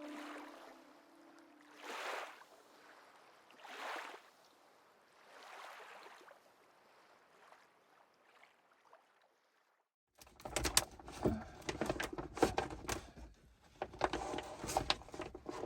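Soft swells of washing water, about one every two seconds, fade out over the first eight seconds. After a short silence, a louder, dense run of clicking, knocking and rustling starts suddenly about ten seconds in.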